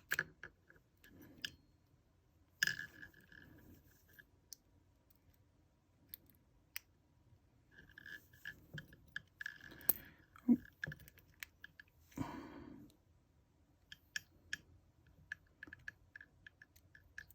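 Small metal clicks and short scrapes from a Yale euro lock cylinder being taken apart with small tools, as the plug and pin parts are worked out of the housing. The clicks come irregularly, with a few louder knocks past the middle and a brief scrape soon after.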